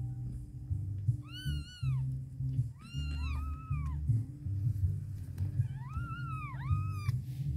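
Persian kittens mewing while they jostle to nurse: short high-pitched cries, one about a second in, two overlapping midway, and a cluster of several near the end. Background music plays underneath.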